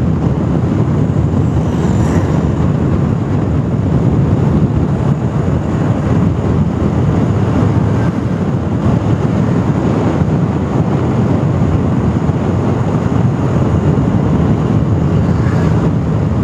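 Motorcycle cruising steadily on a highway at about 65 km/h, its engine and tyre noise under a heavy, even rush of wind over the microphone.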